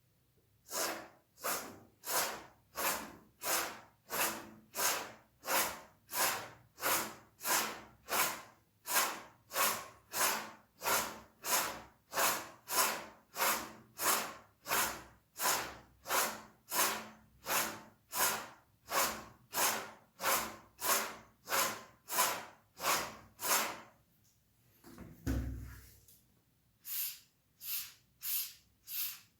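Razor blade being honed on a Nakayama Karasu awasedo Japanese natural finishing stone: an even run of short hissing strokes of steel sliding over the stone, about one and a half a second. Near the end the strokes stop briefly with a low thud, then resume, lighter.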